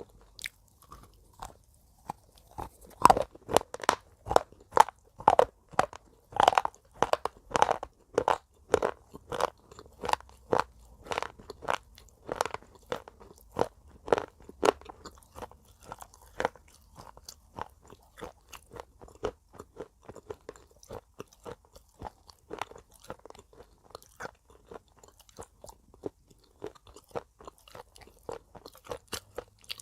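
Pieces of broken slate pencil being bitten and chewed: a run of sharp, dry crunches, about two a second, loudest in the first several seconds and softer after that.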